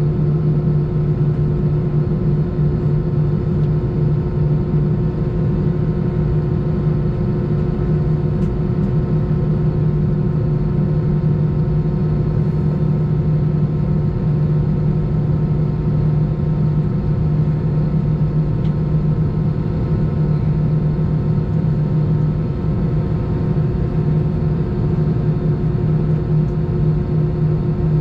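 Steady cabin drone of an Airbus A319 standing on the apron, heard from inside the cabin: a loud, even low hum with a steady tone above it.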